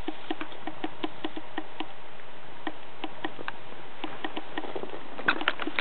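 Rapid soft clicks and ticks, about four or five a second, from a cat busy with catnip on a carpet, over a steady hiss; a louder flurry of clicks comes near the end.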